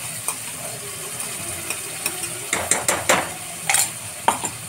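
Steel mixer-grinder jar clanking against a metal kadhai as the last of the ground masala is emptied out: a cluster of metal knocks about halfway through, then two more near the end.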